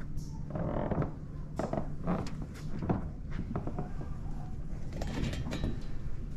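Movement and handling noise from a body-worn GoPro: a steady low rumble with several short scraping, creaking sounds.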